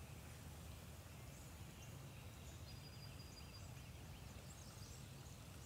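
Quiet outdoor woodland ambience: a steady low hush with faint, distant bird calls, including a thin high whistle held for about a second near the middle.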